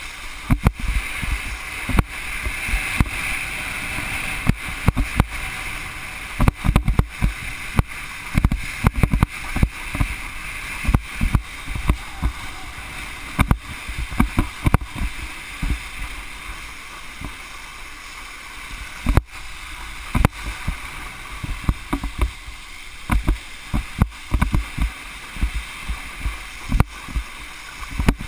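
Wakeboard skimming over choppy water with a steady hiss of spray, broken by frequent low thumps and buffets.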